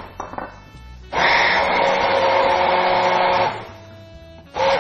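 Hand-held immersion blender running in a plastic jug of chocolate cream, emulsifying it with freshly added cold cream. The motor whines steadily while on; it cuts out at the start, runs again for about two seconds, stops for about a second, and starts up again near the end.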